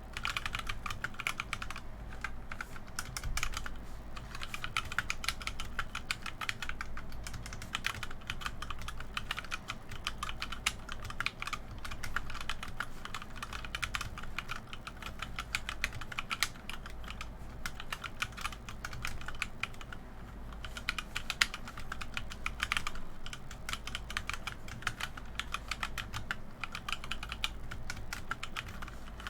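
HyperX Alloy Origins 65% mechanical keyboard with HyperX Red linear switches being typed on continuously, a rapid unbroken run of keystroke clacks, one a little louder about two-thirds of the way through.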